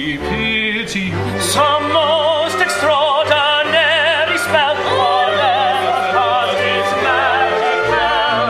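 Operatic singing with orchestral accompaniment, in a live staged comic opera: a soprano and a male voice sing with wide vibrato over sustained orchestral chords.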